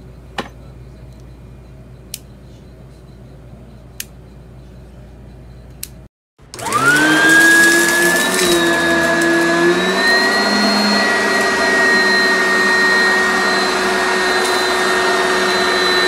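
Oreck Commercial XL upright vacuum cleaner switching on: the motor spins up with a rising whine and then runs loud and steady on carpet, its pitch stepping up slightly a couple of times. Before it, a few sharp clicks over a quiet background.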